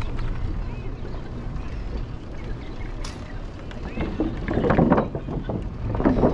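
Wind rumbling on the microphone of a moving cyclist's camera, a steady low rush. Voices come up briefly, loudest about four to five seconds in and again near the end.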